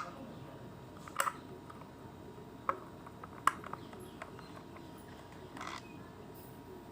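A few light, sharp clicks and taps of tools and small parts being handled while an electric iron is taken apart and its nuts are undone, with a short soft scrape near the end.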